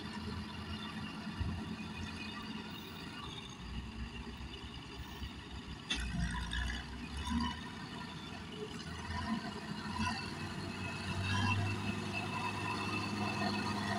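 Diesel engine of a Caterpillar 12G motor grader running under load while it grades the soil, with other earthmoving machinery working behind it. There is a short thump about six seconds in, and the engine grows louder near the end.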